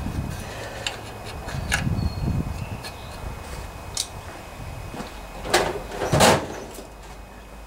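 Flat metal gasket scraper scraping old gasket material off the aluminium crankcase flange of a Briggs & Stratton OHV Intek engine, in short scrapes and clicks, with two louder, longer scrapes near the end.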